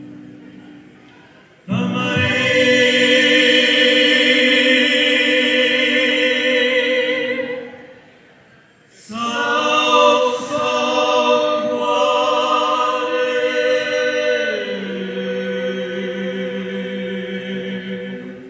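A choir of voices singing unaccompanied in long held chords, in two phrases. The first starts about two seconds in and lasts about six seconds. The second lasts about nine seconds and steps down in pitch partway through.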